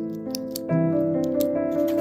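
Background music of slow, sustained notes changing pitch every half second or so. A few short, sharp clicks sound over it in the first second and a half.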